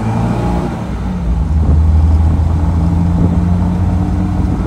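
1961 Mercedes-Benz 190SL's four-cylinder engine running while the car is driven; about a second in the engine note drops in pitch and grows louder, then pulls steadily.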